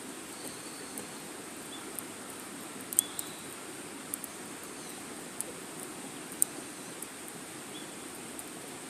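Wood fire crackling: a steady low rush of flame with sharp, irregular pops and snaps, the loudest about three seconds in and again past six seconds.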